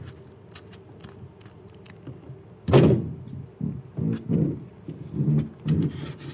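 Wire stripper scoring the rubber jacket of a power cord: faint clicks at first. About three seconds in comes a louder sudden sound, then a series of irregular rubbing and creaking sounds as the cord is worked between the fingers.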